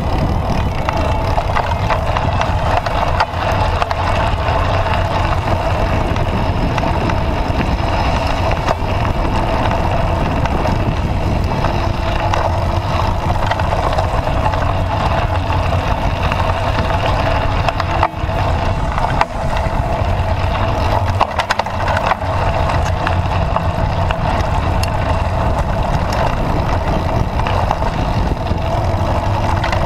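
Steady riding noise from a bike in motion, with a few brief dips about two-thirds of the way in.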